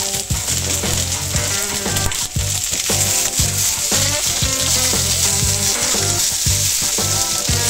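Sliced onions sizzling steadily in hot olive oil on a griddle plate.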